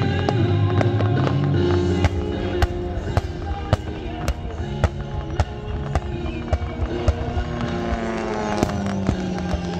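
Fireworks going off in a rapid series of sharp bangs and crackles over continuous music.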